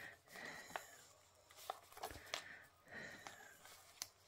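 Faint rustling and a few soft ticks of fingers tying a sheer ribbon into a bow around a paper journal pocket.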